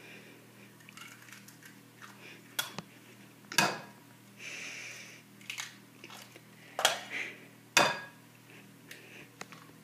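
Eggs cracked on the rim of a glass mixing bowl: four sharp taps of shell against glass, with a short soft hiss about halfway through.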